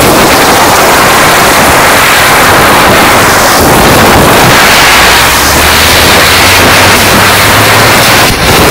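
Diwali firework burning with a loud, steady hiss, with a brief dip near the end.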